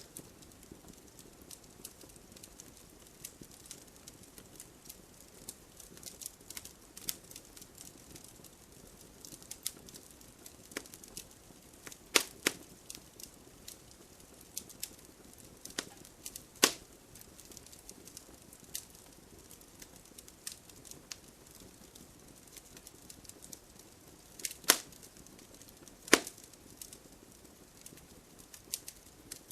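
Wood fire burning in a fireplace: a soft steady hiss under constant small crackles, with a few sharp, loud pops of burning wood scattered through.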